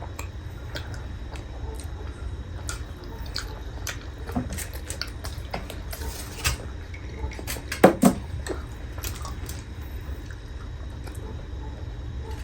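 Eating sounds at a meal: cutlery clinking against bowls and plates, with small wet sounds of soup and food. A steady low hum sits underneath, and a few louder knocks come about two-thirds of the way through.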